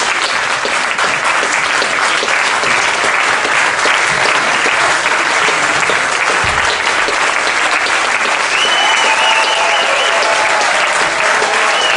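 A theatre audience applauding at the end of a song: dense, steady clapping from a large crowd, with a few high calls rising over it in the last few seconds.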